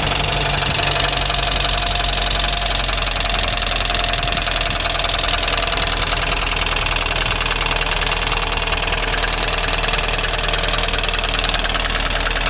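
Fiat Palio Fire 8-valve petrol engine idling with a rapid, even tec-tec-tec tapping from the top of the engine, a racket the mechanic first places in the cylinder head area.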